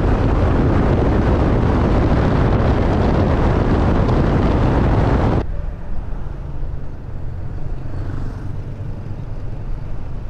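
Wind rushing over the microphone of a moving motor scooter, with the engine running underneath. About five seconds in, the wind noise drops away suddenly, leaving the scooter's steady engine hum at lower speed in traffic.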